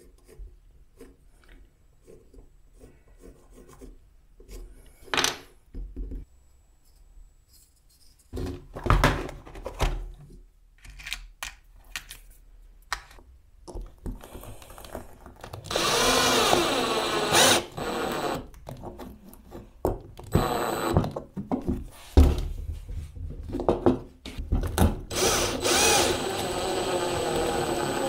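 Power drill with a screwdriver bit driving screws through small worn angle-grinder discs into a wooden block, in several bursts of motor whine whose pitch wavers under the trigger. The longer runs come in the second half. The first few seconds hold only light pencil scratches and handling clicks.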